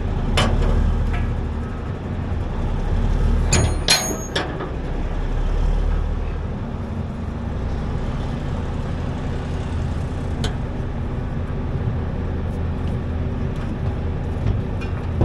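A large truck engine idling steadily, with a brief metallic squeal and clanking from the winch gear about four seconds in and a single click later.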